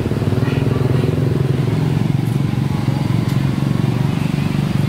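An engine running steadily, a low drone with a fast even pulse, nearer or louder through these seconds.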